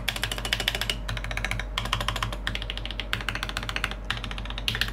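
Fast typing on a PC TGR Alice mechanical keyboard with linear switches: a dense, even run of keystrokes.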